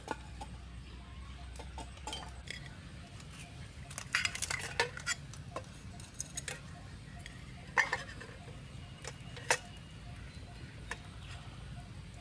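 Metal camping cookware clinking and clattering as a nested pot and pan set is handled and its lid lifted off and set down. There is a quick run of clatters about four seconds in and sharp single clinks a little before eight seconds and again a few seconds later.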